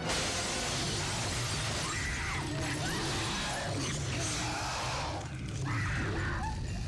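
A window's glass shatters in a sudden loud crash at the start, and the noise of breaking and falling glass carries on for several seconds, with film music underneath.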